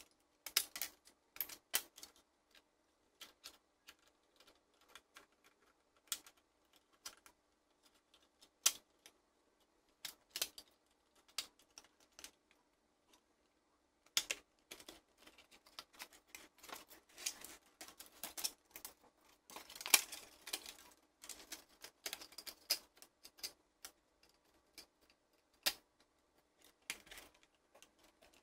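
Irregular clicks and taps of a hard plastic toy casing and its back cover being handled and set down on a wooden table, busiest from about halfway through.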